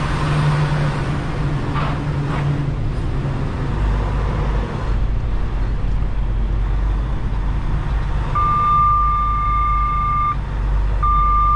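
Semi-truck diesel engine running with a low rumble as the tractor-trailer turns, heavier through the middle. Near the end a steady high-pitched electronic warning beep sounds twice, each time for about two seconds.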